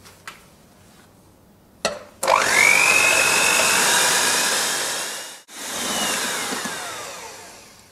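Electric hand mixer switched on about two seconds in, its motor whine rising to a steady pitch as the twin beaters whip egg whites to stiff peaks. The sound breaks off a little after five seconds, then runs on with its pitch slowly falling as it fades.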